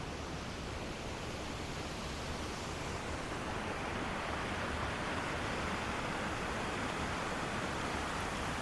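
Steady rush of water flowing beneath the ice of a frozen waterfall, growing a little louder about three seconds in.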